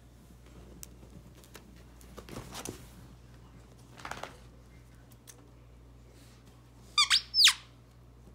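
A squeaky dog toy squeaks three times in quick succession near the end, each squeak a sharp high note sliding steeply downward. Before that there is only faint rustling of movement.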